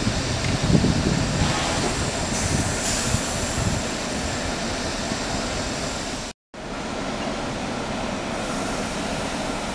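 Coaches of the St Petersburg–Gomel passenger train rolling slowly past, a steady rumble of wheels with a light squeal for a moment a few seconds in. The sound cuts out briefly about two-thirds through.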